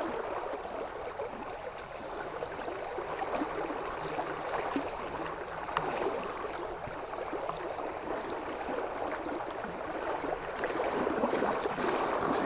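River water flowing and rippling, a steady rushing babble.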